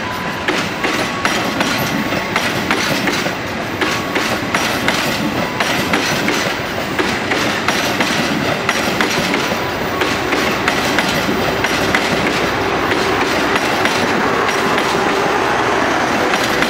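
INKA 2016 trainset passenger coaches rolling past on their TB1014 bogies: a steady rumble with wheels clacking over rail joints and points, irregular clusters of clicks, and brief faint wheel squeals now and then.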